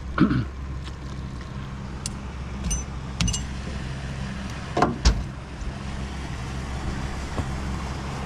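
Small boat's outboard motor running steadily with an even low hum, while a few sharp knocks and clicks sound on the hull, the loudest about five seconds in.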